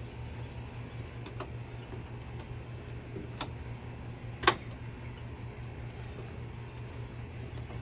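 A few light clicks from parts being handled, then one sharp, much louder click about halfway through, over a steady low hum.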